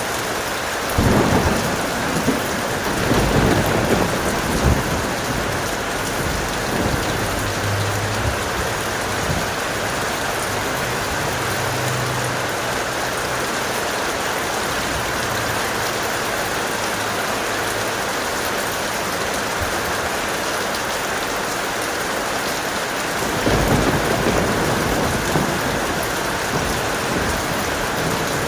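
Heavy rain falling steadily, with two rolls of thunder: one rumbling for a few seconds starting about a second in, and another near the end.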